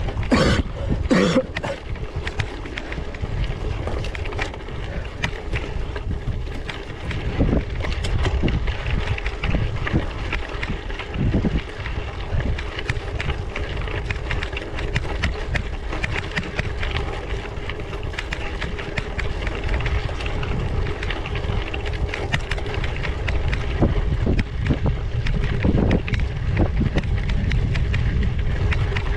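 Gravel bike on 700x38c tyres riding over rough ground: a steady rumble with many small clicks and knocks from the tyres and frame, and wind buffeting the microphone.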